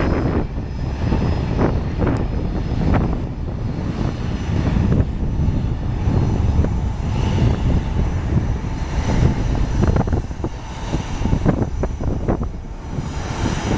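Airbus A320-212's two CFM56-5A turbofan engines at takeoff power as the airliner climbs away: a steady low jet roar with irregular crackle running through it.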